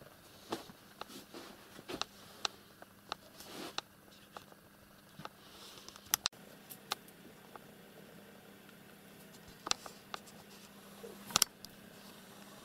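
Scattered faint clicks and taps at irregular intervals, the loudest a quick pair near the end, over a faint steady hum.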